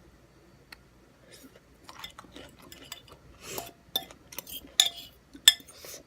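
Fork or other cutlery clicking and scraping against a food container while eating. It is quiet at first, then gives a run of irregular sharp clicks and short scrapes starting about two seconds in, with the sharpest clicks near the end.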